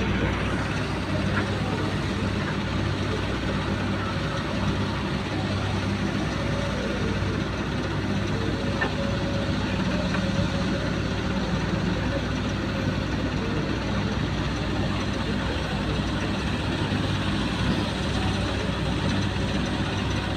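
Steady running of diesel engines: a Hyundai wheeled excavator at work and a farm tractor idling beside it.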